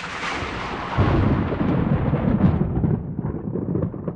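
Thunder sound effect: a hissing crack that fades away while a heavy low rumble swells about a second in and rolls on.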